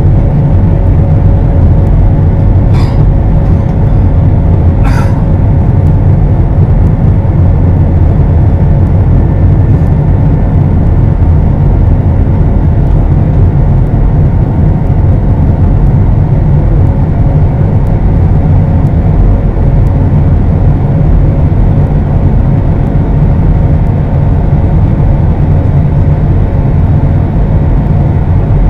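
Steady jet engine and airflow noise heard inside an airliner's cabin during the climb after takeoff: a loud, even, deep rumble with a faint steady hum above it.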